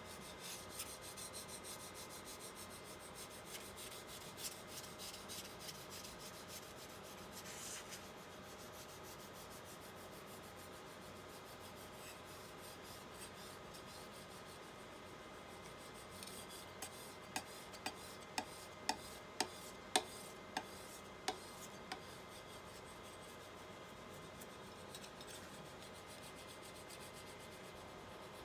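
A spatula rubbing and scraping across an adhesive screen-protector film and its gasket on a resin printer's LCD screen, pressing it down. Soft, continuous scratching, with a run of about ten sharp clicks over some five seconds in the second half.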